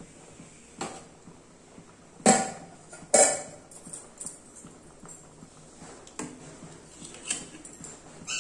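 A handful of short, sharp knocks, the two loudest close together about two and three seconds in, over a faint steady hiss.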